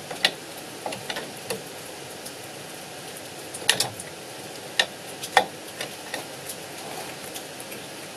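Scattered clicks and clinks of pliers and brake parts as a return spring is hooked onto the shoes of an Invacar's rear drum brake, with a few sharper clicks near the middle.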